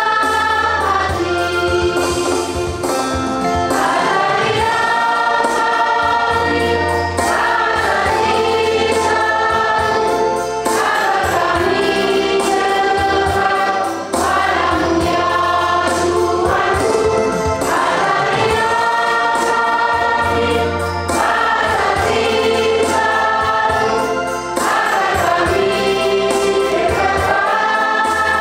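Church choir singing a hymn in phrases a few seconds long, over a steady low bass line.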